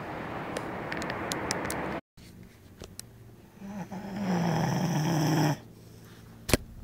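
A man snoring in his sleep: a long rasping breath, then after a brief dropout one loud snore about a second and a half long whose low pitch sinks toward its end. A sharp click near the end.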